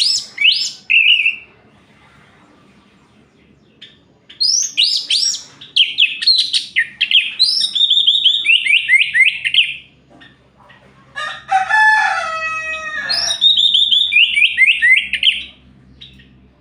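Orange-headed thrush singing: loud, rapid phrases of whistled, falling notes, the longest lasting about five seconds. About eleven seconds in comes a short, harsher crowing call like a rooster's.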